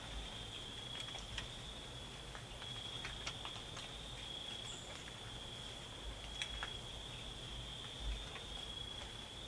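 Crickets singing in a steady, continuous high trill, with scattered faint ticks and clicks.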